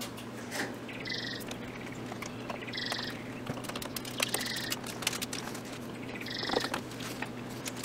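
A bird calling four times, evenly spaced, each call short and high with a fainter lower note under it. Light clicks and taps of wire connectors and a screwdriver being handled on the heater element terminals run underneath.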